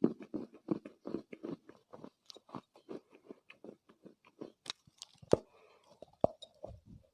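Chunks of Chinese loess (dried clay earth) being bitten and chewed close to the microphone: a steady run of soft crunches, about three to four a second, with a few sharper cracks past the middle.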